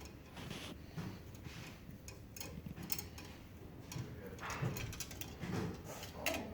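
Irregular small clicks and taps of hand tools and wire being handled during electrical wiring work, as ground wires are tied together.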